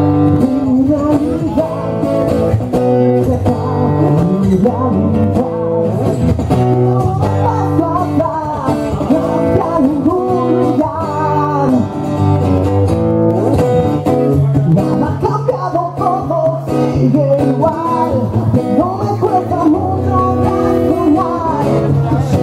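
Live acoustic band music: an acoustic guitar played through a PA in a slow song, with a singing voice carrying the melody over it.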